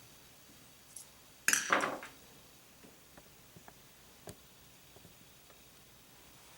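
Small parts of a vintage RC car shock absorber clicking and clinking as it is taken apart by hand: a sharp click about a second in, a short louder clatter just after, then a few faint, scattered ticks.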